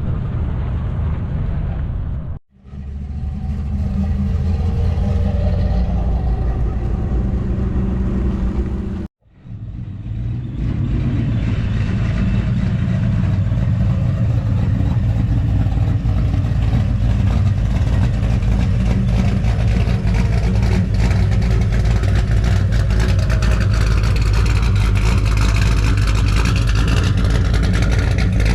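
Car engines running loudly with a deep, pulsing exhaust note, the pitch rising and falling at times as they are revved, broken by two abrupt cuts about two and a half and nine seconds in.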